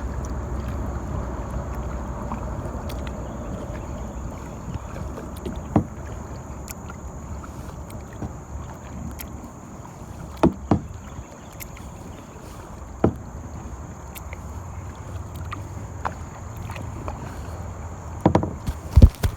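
Kayak being paddled on a river: a steady rush of water and wind, with occasional sharp knocks and a quick cluster of them near the end.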